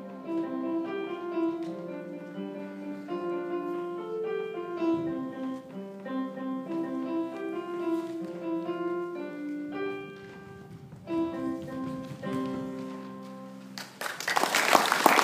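A solo piano piece played note by note, its last few notes spaced out. About 14 seconds in the playing ends and an audience starts applauding, louder than the piano.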